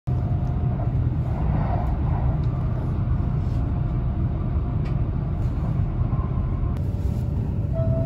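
Kintetsu ACE limited express train running, heard from inside the passenger cabin: a steady low rumble with a few faint clicks from the track.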